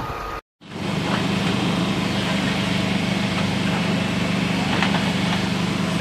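Engine running steadily, after a brief break about half a second in.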